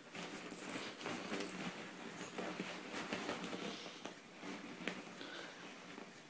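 Beagle puppy wriggling on her back on a shiny beanbag: the cover rustles and scuffs irregularly, with a few sharp clicks.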